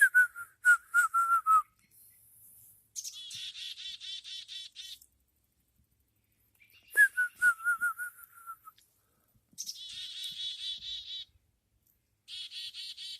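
A person whistles a short run of about six falling notes, and small birds answer with rapid, high chattering trills. The exchange happens twice, with another burst of bird chatter near the end.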